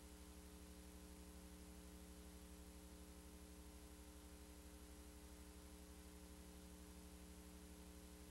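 Near silence: only a faint steady electrical hum with hiss.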